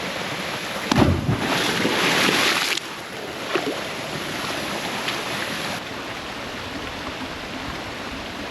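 Steady rushing water of a waterfall pool, with a sudden heavy thump about a second in followed by about two seconds of louder churning, splashing water, as of a body plunging into the pool.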